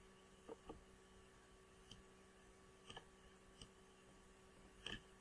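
Near silence broken by about six faint, scattered clicks of a computer mouse. The last click, near the end, is the loudest.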